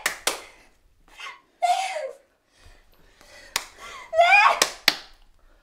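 A woman's short laughing cries, with a few sharp hand claps: two right at the start and three more later, the last two close together.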